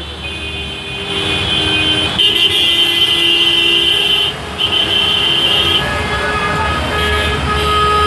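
Traffic wading through a flooded street: car horns honking in long held blasts, several in a row, over engine rumble and the wash of water around the wheels.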